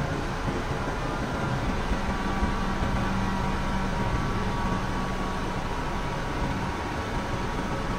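Grove TM1500 truck crane's diesel engine running steadily while it holds a load on its raised lattice boom, a low engine hum that steadies on one pitch from about two to six seconds in.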